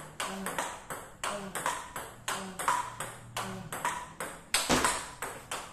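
Table tennis rally: the ball clicking back and forth off the paddles and the table, about two to three hits a second, with one louder hit near the end.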